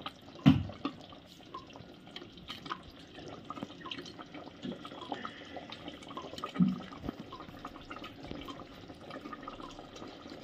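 Faint wet, liquid sounds with scattered small clicks, and one sharp knock about half a second in.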